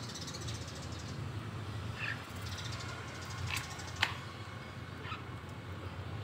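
Javan myna (jalak kebo) in a bamboo cage giving a few short calls, with a sharp click about four seconds in, over a steady low hum.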